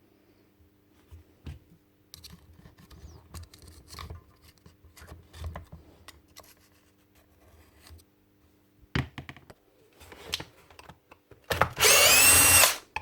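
Light clicks and knocks of a tool being handled, then, near the end, a battery power tool's motor runs for just over a second, its pitch rising as it spins up.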